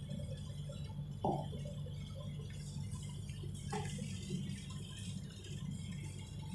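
Steady low hum of room noise, with a short knock about a second in and a fainter click near four seconds.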